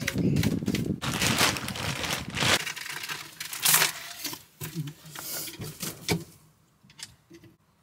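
Dry chopped coop bedding rustling and crackling as it is shaken off a slatted plastic roosting grid, dense for the first couple of seconds, then scattered crackles that die away near the end.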